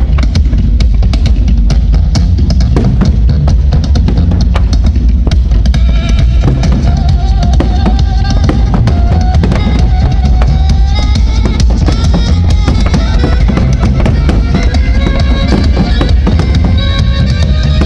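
Fireworks display set to music: dense rapid bangs and crackle over a heavy low rumble, mixed with a loud music track whose sustained melody comes in about six seconds in.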